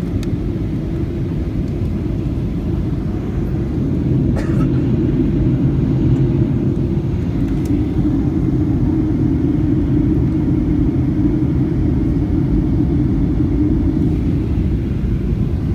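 Airliner cabin noise: the steady low rumble of the engines and rushing air, heard from a passenger seat on approach. It grows slightly louder about four seconds in.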